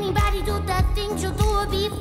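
Background music: a song with a sung melody over a steady kick-drum beat.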